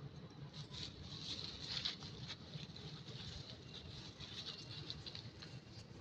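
Dry leaf litter rustling and crackling faintly and irregularly as monkeys shift and groom on it, busiest about a second or two in.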